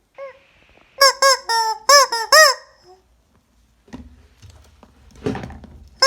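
Rubber chicken squeeze toy squawking: one short squeal, then a quick run of about six honking squeals about a second in. Near the end comes a softer rustling noise.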